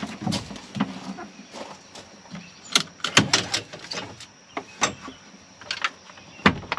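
Irregular sharp knocks and clunks from the seats and body of a Honda Pioneer 700-4 side-by-side being handled and climbed about in, thickest about three seconds in, with a loud knock near the end.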